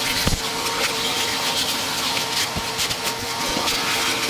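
Shop vacuum running steadily with a constant motor whine, sucking bird feathers and debris out of a furnace. A few light knocks come through, the loudest shortly after it starts.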